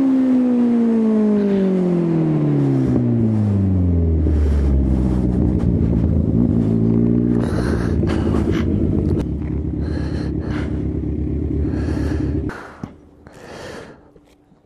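Kawasaki Z1000 inline-four engine, picked up by a helmet microphone, with its revs falling steadily over about four seconds as the bike slows, then running at a steady low idle. The engine sound stops abruptly about twelve seconds in, leaving a few faint knocks and rustles.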